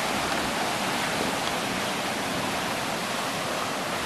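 A steady, even rushing hiss with no pitched sound in it.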